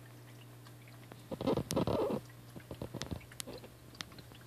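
Common snapping turtle biting and working at a large goldfish at the water surface: a loud burst of wet noise lasting about a second, starting a little over a second in, then a few scattered sharp clicks, over a steady low hum.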